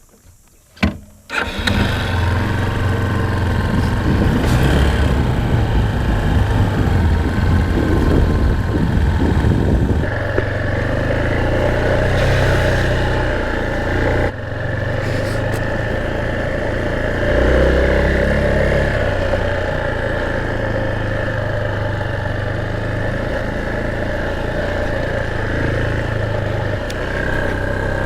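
Motorbike engine starting about a second in, just after a sharp knock, then running as the bike rides off, its note rising and falling with the throttle.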